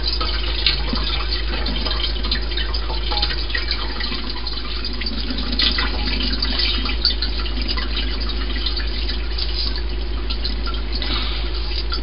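Water from a kitchen faucet running steadily into the sink, with hands rinsing under the stream.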